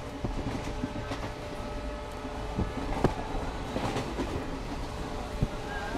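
Express train running at speed, heard from inside a passenger coach with an open window: a steady rumble of wheels on rail with a few sharp clacks as the wheels pass over joints.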